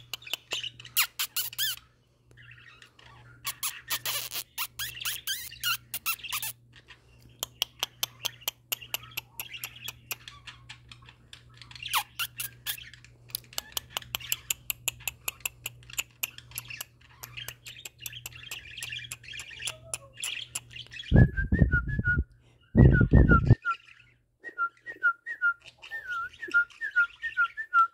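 Two pet budgerigars warbling and chattering, with rapid clicks and squawky notes. About three-quarters of the way through, two loud low rumbles break in, and after them one bird repeats a short chirp over and over.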